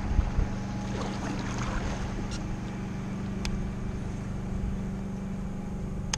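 Motorboat engine running steadily as the boat passes, a low even hum, with a few faint sharp clicks over it.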